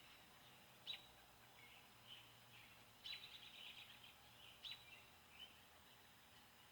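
Near silence with faint birds chirping in the background: a few short downward chirps, with a quick trill about three seconds in.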